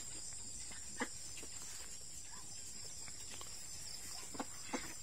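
Steady high-pitched insect drone, with a few faint short ticks about a second in and again near the end.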